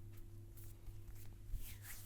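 Faint scratchy rubbing of hands over hair and skin during a head massage, with a few soft ticks and a brushing swish near the end, over a steady low hum.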